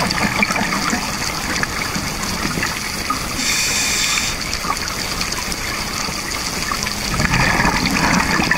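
Scuba divers' exhaled bubbles gurgling underwater, heard through a camera housing, with a brief hiss about halfway through and a louder stretch of bubbling near the end.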